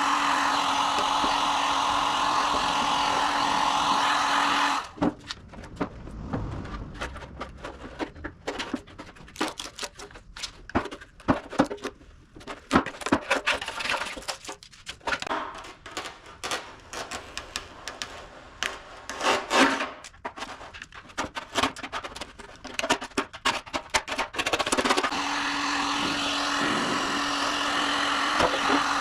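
A power tool runs steadily with a constant hum, stops about five seconds in, and gives way to some twenty seconds of irregular scraping, rubbing and knocking of hand tools on a steel car wing as old paint is stripped; the tool starts up again near the end.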